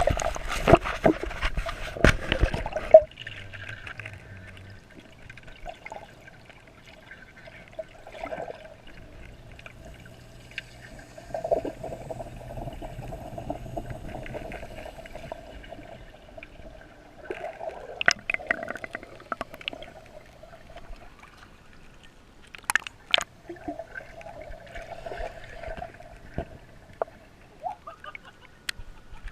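Water splashing and sloshing, loudest and busiest for the first three seconds, then lighter, uneven sloshing with a few sharp splashes later on.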